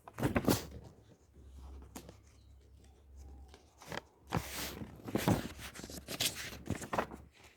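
Paper book being handled, its pages rustling and flipping in a series of short crisp strokes, with one longer swish of a page turning about four seconds in.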